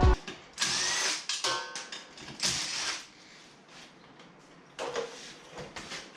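Several short bursts from a hand-held power tool, each about half a second long and stopping and starting, with lighter mechanical clatter between them.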